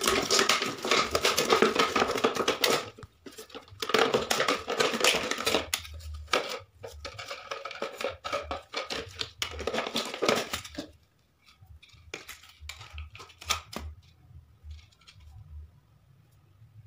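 Thin plastic candy jar being cut apart by hand: rasping, crackling plastic with many sharp clicks, pausing briefly about three seconds in and stopping about eleven seconds in, followed by a few light plastic clicks and taps.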